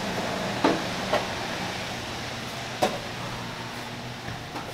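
Three sharp knocks or clacks in a small shop: one under a second in, one shortly after, one near three seconds in. They sound over a steady hum and background noise.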